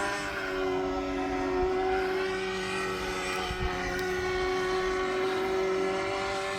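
Radio-controlled plane's motor and propeller droning in flight: a steady whine that dips a little in pitch at the start, then holds even.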